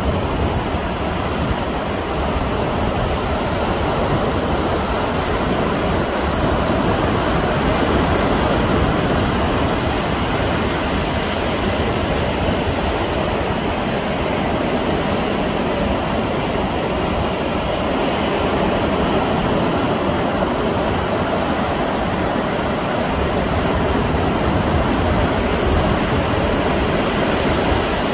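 Steady rushing of sea surf and wind, with a low rumble that flutters unevenly underneath.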